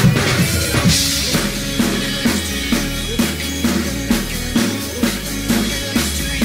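Acoustic drum kit played in a steady R&B-pop groove of kick, snare and hi-hat, mixed over the recorded song it covers, whose bass and melody are heard beneath the drums.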